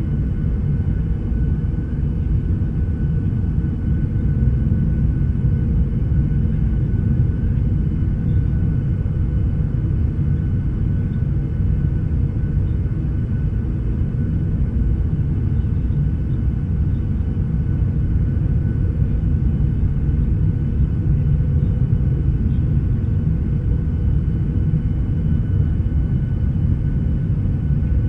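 Aircraft cabin noise: a steady low rumble of an airliner in flight, with two faint steady whining tones above it.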